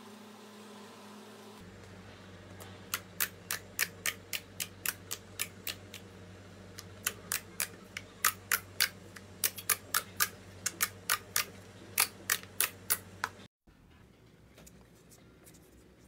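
A rapid run of sharp, crisp clicks, about three or four a second, over a low steady hum, cutting off suddenly near the end.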